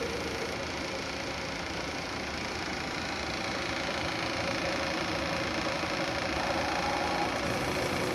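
Milltronics MB-19 CNC bed mill running, a steady machine hum from the spindle and drives with faint whining tones that come and go.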